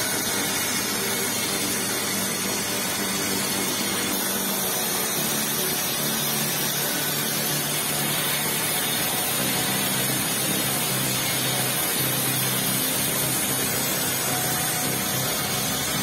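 Homemade circular-saw sawmill cutting lengthwise through a wooden beam: a Lifan engine runs steadily under load, driving a large saw blade, with the hiss of the blade in the wood.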